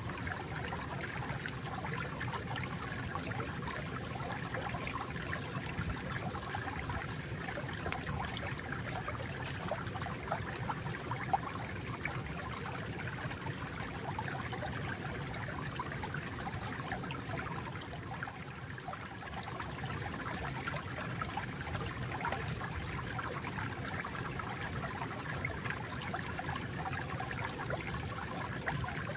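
Water flowing and trickling steadily over stones, a continuous babbling stream with small splashes throughout, dipping slightly about two-thirds of the way through. One brief click sounds a little before the middle.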